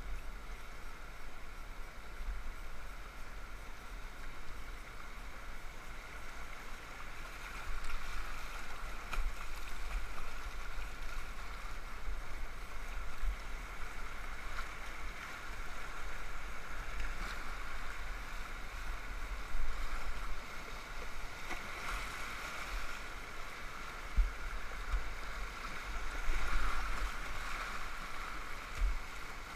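Rushing whitewater of a river rapid heard from the bow of a kayak, a steady churning hiss of water with a few sudden low bumps.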